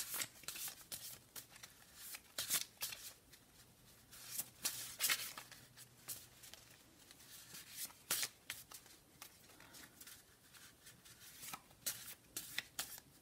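A small deck of homemade paper cards being shuffled by hand: soft, irregular rustling and flicking of card edges, with a few louder flurries.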